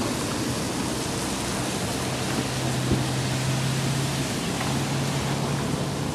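Steady outdoor rushing noise, like wind over the microphone. A low, even hum joins about two seconds in and runs almost to the end, with a single sharp click near the middle.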